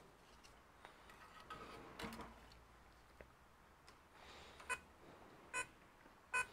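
Three short electronic beeps, a little under a second apart near the end, from bench test equipment. Before them come soft knocks and rustling as equipment on the workbench is moved by hand.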